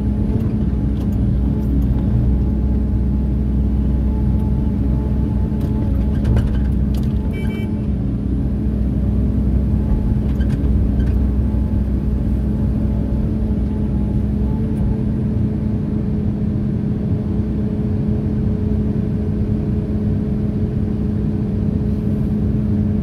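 Crawler excavator's diesel engine running steadily with a constant hum, heard from inside the cab. A few light knocks come about six to seven seconds in.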